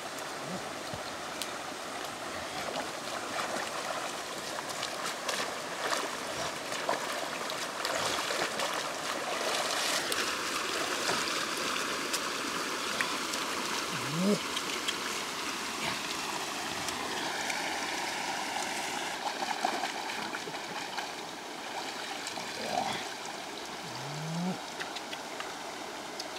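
Steady rushing of flowing water, with a few faint clicks and two short rising squeaks about halfway through and near the end.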